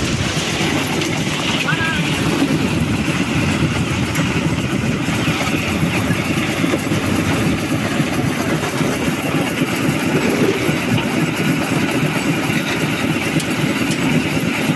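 A concrete mixer's engine running steadily, with a fast even rhythm and no change in speed.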